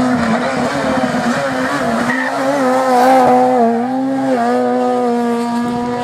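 Rally car engine held at high, nearly steady revs for several seconds, its pitch dipping slightly a couple of times.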